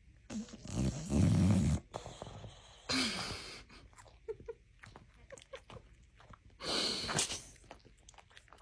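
A dog making throaty vocal sounds in three bouts: a long, loud one in the first two seconds, a shorter one falling in pitch about three seconds in, and a noisier one about seven seconds in.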